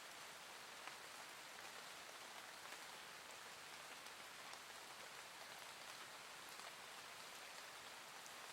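Soft, gentle rain falling steadily: an even, faint hiss with scattered small drop ticks.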